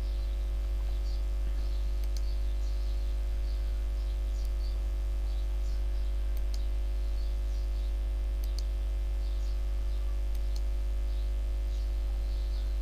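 Steady low electrical mains hum, with faint scattered small clicks and ticks over it.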